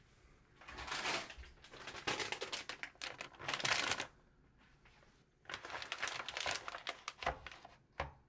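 Clear plastic bag of potatoes crinkling and rustling as it is handled and set down on a counter, in several stretches. Near the end, a couple of light knocks as a plastic yogurt tub is put down.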